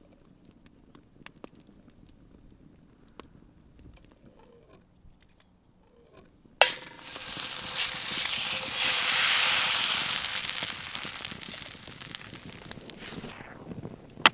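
Faint campfire crackle. About six and a half seconds in comes a sharp crack as an egg is broken into a hot cast-iron skillet, then loud sizzling as the egg starts to fry, dying away near the end.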